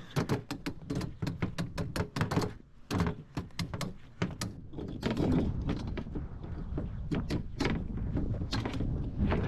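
Garage door torsion spring being made up by hand: a quick, irregular run of clicks and knocks, over a steady low hum.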